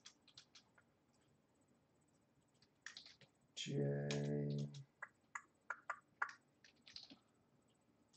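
Typing on a computer keyboard: irregular key clicks, a few at first, a pause, then a quicker run in the second half.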